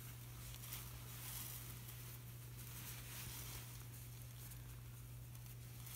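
Faint rustling and rubbing of a paper towel wiping excess lubricant out of a drum brake assembly, over a steady low hum.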